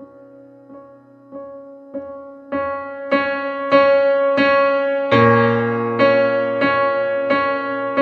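Background piano music: a steady run of single notes, about three every two seconds, growing louder about two and a half seconds in, with deeper notes joining about five seconds in.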